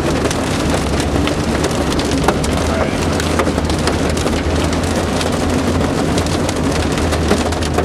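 Rain and small hail pelting a moving car's roof and windshield, heard from inside the cabin: a dense steady hiss full of sharp scattered ticks over the low rumble of the car on the road.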